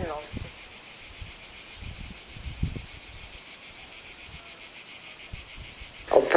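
Insects chirring steadily in a high, rapidly pulsing drone, with a few faint low thumps scattered through it.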